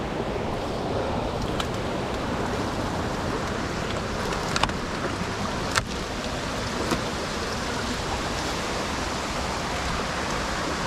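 Steady rush of a waterfall and its creek, with a few short sharp clicks partway through.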